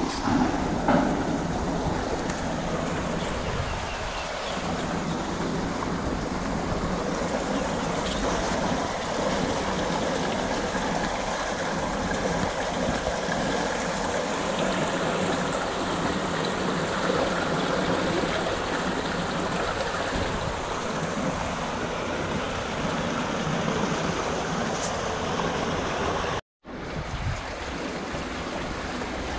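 Water rushing steadily through a concrete irrigation ditch. The sound drops out for an instant near the end, then the same rushing returns a little quieter.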